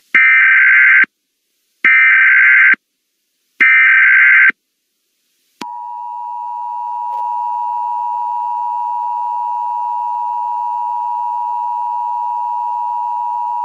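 Emergency Alert System tones: three bursts of warbling digital SAME header data, about a second each with short gaps between, then the steady two-tone EAS attention signal starting about halfway through. Together they announce an incoming emergency message.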